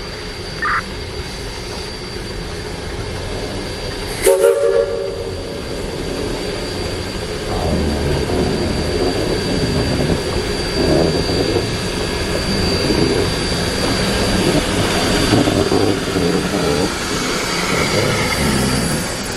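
Narrow-gauge steam locomotive sounding a short whistle blast, then working with its exhaust chuffing and growing louder.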